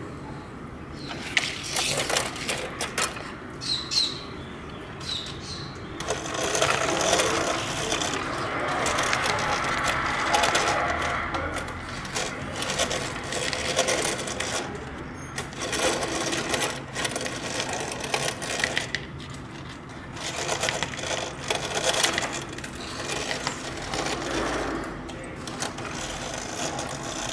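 Gear mechanism and wheels of a vintage Ideal 'Robert the Robot' toy robot clattering and whirring as it is driven through its cable remote, with many small clicks and louder stretches as it moves and turns.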